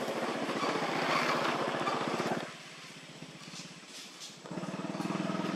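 Vehicle engine running with a fast, even pulse, cutting off abruptly about two and a half seconds in; a steady engine hum starts again about a second before the end.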